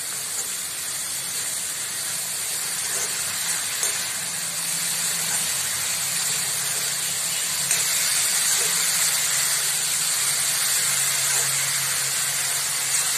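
Dried shrimp (sukat) with onion and tomato sizzling in a kadhai as it is stir-fried with a steel spatula: a steady frying hiss that grows slightly louder.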